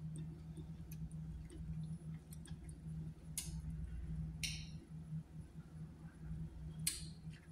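A person chewing a mouthful of food, with three short wet mouth smacks: one a little past the middle, another about a second later, and one near the end. A steady low hum runs underneath.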